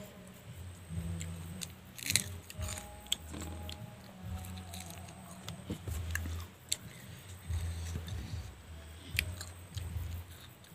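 Biting and chewing raw green chillies, with several sharp crunches, the loudest about two seconds in.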